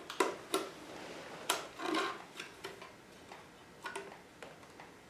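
Irregular light clicks and taps of plastic as a zip tie is threaded through and around a plastic swingarm protector, with about half a dozen sharp ticks spread unevenly.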